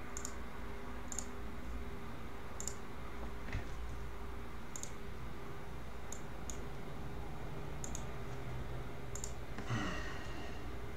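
Computer mouse clicking, single sharp clicks every second or so, as a web page that will not load is refreshed again and again. A short, louder rustling noise comes near the end.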